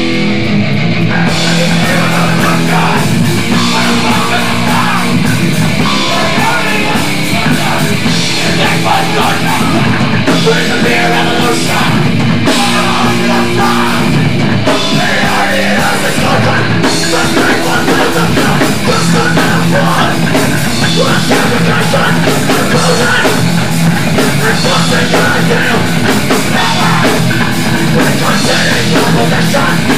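Loud hardcore punk music: a band with distorted electric guitars and a drum kit playing without a break.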